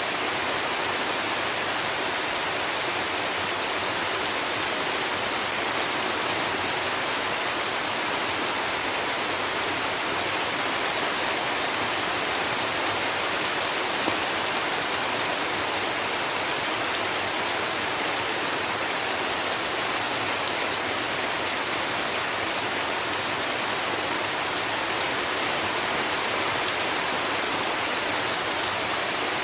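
Heavy rain falling steadily: a dense, even hiss with fine patter of individual drops.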